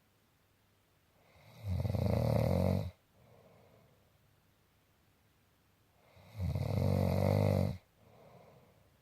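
Snoring: two long, loud snores about four and a half seconds apart, each followed by a softer breath.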